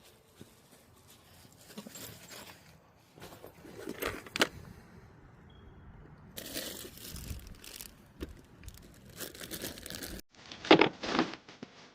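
Crinkling and rustling handling noise in irregular bursts, with a few sharp knocks, loudest in a last burst after it cuts off suddenly about ten seconds in.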